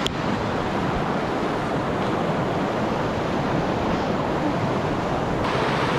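Water rushing over a weir: a steady, even rush with no breaks.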